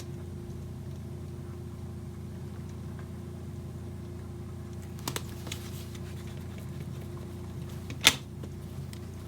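Steady low indoor hum, with two small clicks about five seconds in and one sharp, louder click about a second before the end, like small objects handled at a desk.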